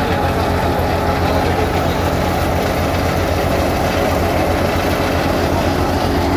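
Wheat thresher running steadily while it threshes cut wheat: a loud, continuous mechanical rumble and churn with no let-up.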